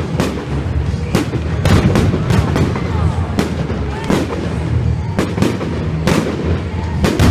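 Aerial fireworks display: a rapid, irregular series of more than a dozen sharp shell bursts and bangs over a continuous low rumble of the show.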